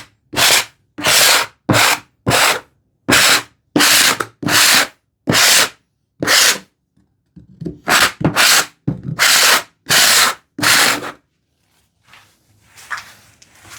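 Handsaw teeth scraped back and forth across the flat backs of wooden tambour slats, used as a toothing plane to roughen the surface for glue. A run of rasping strokes, about one and a half a second, a brief pause about seven seconds in, then more strokes, trailing off into a few light scratches near the end.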